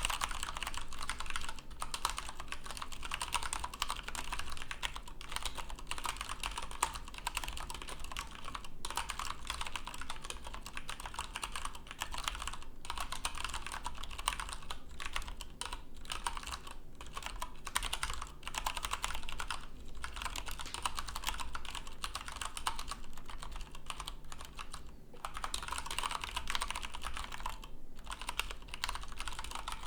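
Fast, continuous typing on a split mechanical keyboard, about 92 words per minute, with dense key clicks broken by a few brief pauses.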